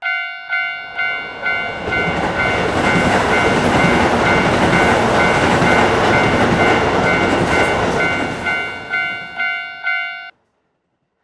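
Japanese railroad crossing warning bell ringing "kan-kan" about twice a second while a train passes, its rumble swelling in and then fading away. The bell stops near the end.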